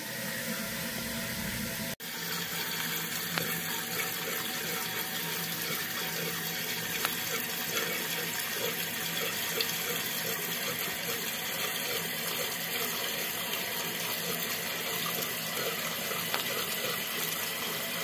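Toilet fill valve refilling the tank once the angle-stop supply is reopened: a steady hiss and rush of water into the tank.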